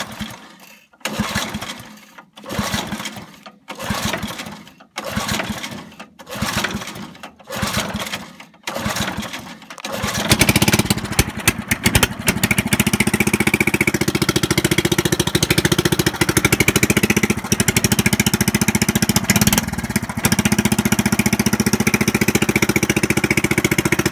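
A 5 hp single-cylinder Briggs & Stratton engine on a rear-engine riding mower is recoil pull-started cold on full choke, about eight pulls roughly a second apart. About ten seconds in it catches and keeps running steadily. It runs loud because a pipe has come off the muffler.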